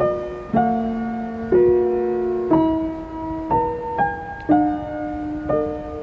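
Soft background piano music: gentle chords struck about once a second, each ringing and fading before the next.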